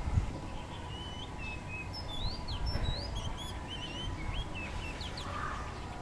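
Small songbird chirping: a string of short, quick whistled notes that swoop up and down, from about half a second in until shortly before the end, over a faint steady tone.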